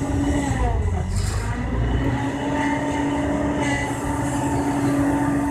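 Kobelco excavator working, its diesel engine and hydraulics running under load with a low rumble and a held hum that sags about a second in, then steadies.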